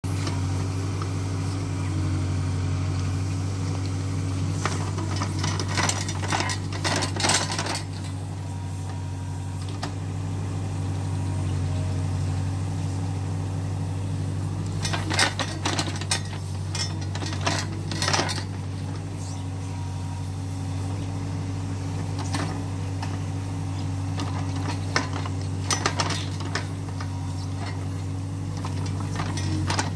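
Hyundai R30Z-9AK mini excavator's diesel engine running steadily under load while it digs, with several bursts of metallic clinks and rattles from the working bucket and arm.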